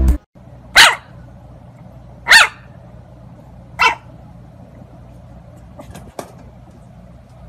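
Bulldog puppy barking three times, about a second and a half apart, the last bark weaker. Two faint clicks follow near the end.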